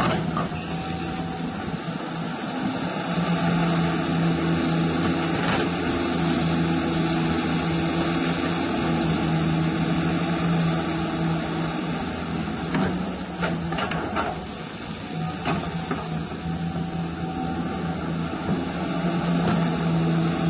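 Radio-controlled hydraulic CAT 336 excavator model at work: its electric hydraulic pump hums steadily as the boom, arm and bucket dig and swing. A few sharp clicks come about two-thirds of the way in.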